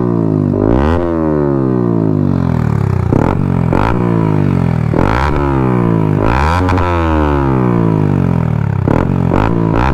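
Yamaha R15 V3's 155 cc single-cylinder engine revved repeatedly at a standstill through an aftermarket Akrapovic slip-on exhaust, loud. There are about eight sharp throttle blips, each climbing quickly and falling back toward idle.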